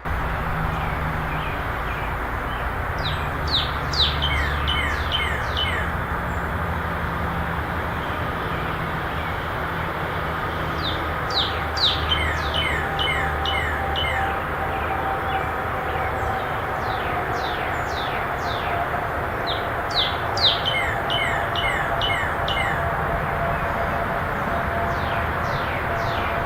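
A songbird sings a phrase of quick, steeply falling whistled notes three times, about eight seconds apart, over a steady background hiss and low rumble.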